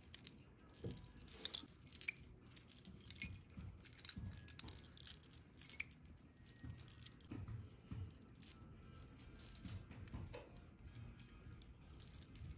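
Gold charm bracelet jingling as the wrist turns: heavy gold charms and seal fobs clink irregularly against one another and against the gold curb links, with soft handling thumps underneath.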